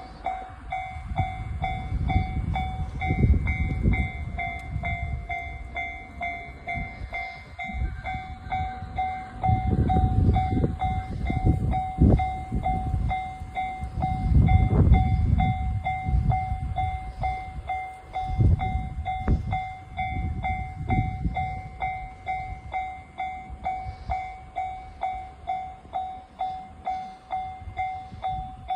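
Japanese level-crossing warning bell ringing in a steady, even clang-clang rhythm while a JR Mito Line train rumbles across the crossing. The train's rumble rises and falls in heavy swells and dies away about twenty seconds in, while the bell keeps ringing.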